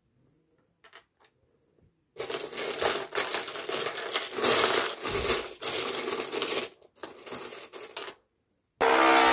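Loose plastic LEGO bricks clattering and rattling as hands rummage through a pile of pieces, a dense clatter lasting about six seconds with short breaks. Just before the end, a loud steady pitched sound cuts in abruptly.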